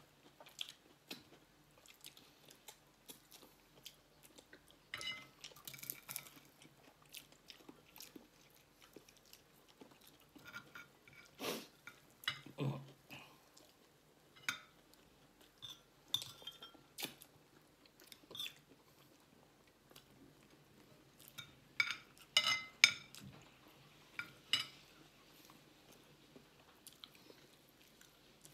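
Close-up chewing and mouth sounds of people eating rice and fish by hand, with scattered smacks, crunches and occasional clinks of plates and a spoon. The sounds come irregularly, in a few louder clusters.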